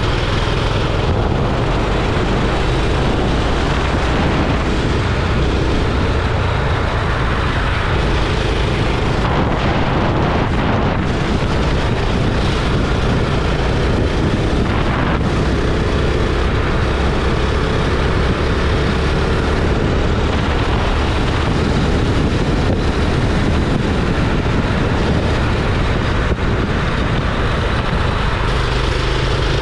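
Go-kart engine running hard on track, a steady loud drone whose pitch shifts as the kart speeds up and slows, with wind rushing over the microphone.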